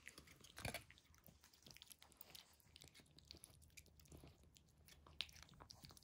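A cat eating wet cat food from a plate: faint, irregular wet chewing and licking clicks and smacks, with a slightly louder click about half a second in and another near the end.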